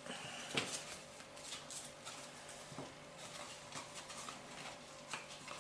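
Paper handling: light rustles and taps of cardstock as hands hold and press a small card box, with a sharper tap about half a second in and another near the end.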